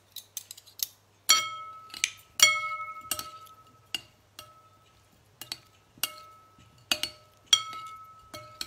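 A utensil clinking against a bowl as vegetables are stirred in it: about a dozen irregular knocks, each leaving the bowl ringing briefly.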